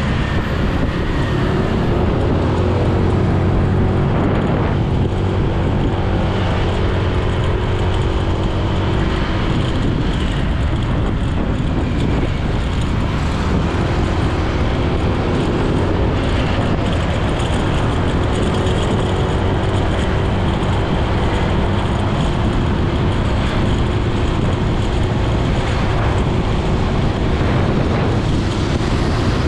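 Motorcycle engine running while riding in city traffic, its pitch rising and falling with the throttle, over steady rushing road and wind noise.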